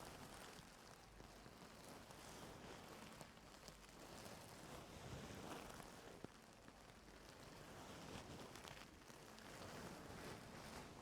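Faint, close-miked scratching and rustling of ear-cleaning tools working in an ear canal, in soft swells with occasional small ticks.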